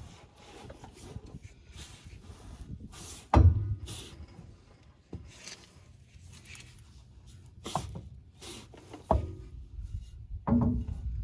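A few sudden thunks and knocks from a front driveshaft and its universal joint being maneuvered into the yoke by hand. The heaviest, deepest thunk comes about a third of the way in, with lighter knocks later on.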